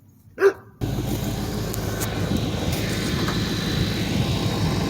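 2006 Pontiac GTO's LS2 V8 idling steadily, cutting in abruptly about a second in after a brief sharp vocal-like sound; the water pump job is finished and the engine is running again.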